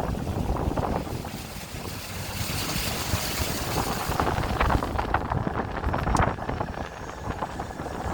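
Wind buffeting the microphone over a low rumble, with a stretch of louder hiss a few seconds in and a few sharp clicks in the second half.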